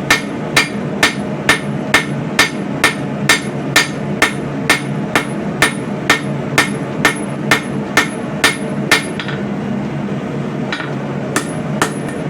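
Blacksmith's hammer striking hot coil-spring steel on an anvil in a steady rhythm of about two blows a second, drawing out and smoothing the knife's bevel with the hammer's rounded face. The blows stop for about two seconds near the end, then start again, over a steady low background rumble.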